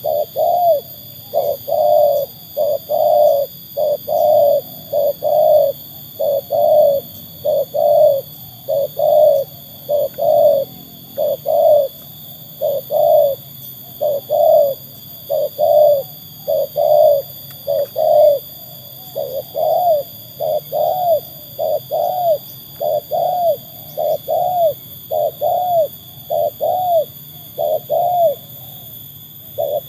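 Spotted dove (tekukur) cooing: a long unbroken series of short, low coos, about one a second.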